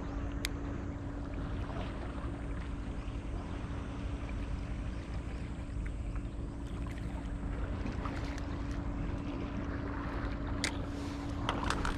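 Steady outdoor rumble of wind on the microphone with a constant low hum underneath, and a few sharp clicks near the end.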